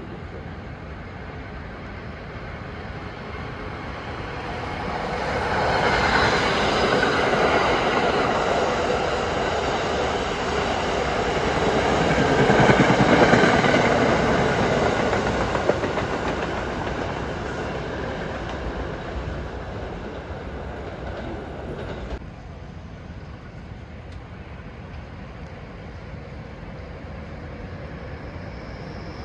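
Passenger train passing through the station. Its noise builds over a few seconds, is loudest near the middle, then fades, with a sudden drop about three-quarters of the way through.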